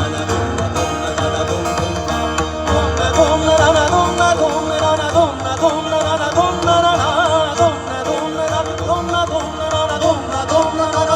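Live Indian folk music between sung lines: an instrumental interlude with a melody that bends and wavers in pitch over a steady low drone.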